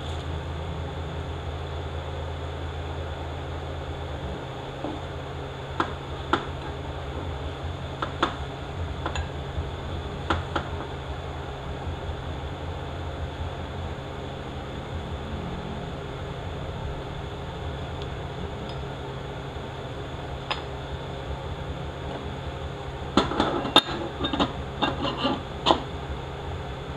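Steady low workshop hum with scattered faint clicks. About three-quarters of the way through comes a quick run of metallic clinks and taps as aluminium transmission parts are handled and set on a steel workbench.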